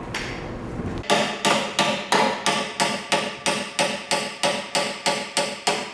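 Hammer blows on the steel of a crash-damaged Hyundai i30's front end, a steady run of ringing metallic strikes about three a second, starting about a second in after a steady machine noise cuts off: bent metal being beaten back into shape in collision repair.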